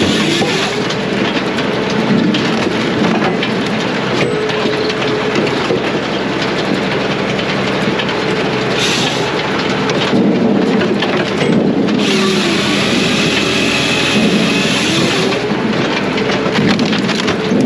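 Brute Force USA 18-24HD diesel firewood processor running at work on hardwood: a continuous loud machine noise from engine, hydraulics and cutting, with a pitched hum that dips and recovers several times as the machine takes and sheds load.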